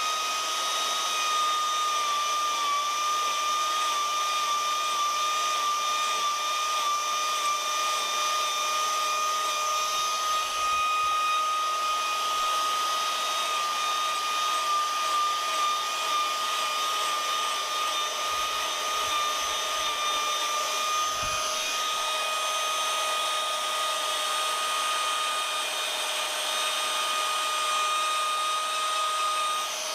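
Electric power carving tool with a rotary gouge running steadily with a high, even whine, carving wood.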